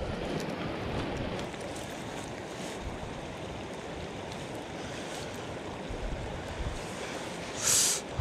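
Steady wind noise and lapping lake water, with the wind buffeting the microphone now and then, and a brief hiss near the end.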